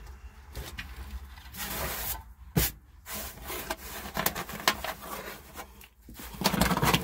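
A hand rummaging and rubbing along a truck's dashboard: irregular scraping and rustling with scattered clicks, and one sharp knock about two and a half seconds in.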